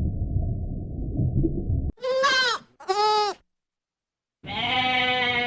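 A low, muffled rumble cuts off sharply, then a goat bleats: two short bleats in quick succession and, after a short silence, a longer bleat.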